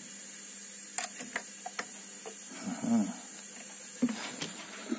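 Scattered sharp metallic clicks and knocks as a key blank is fitted and clamped in the vise of a CNC key-cutting machine: a few in the first two seconds and two more near the end.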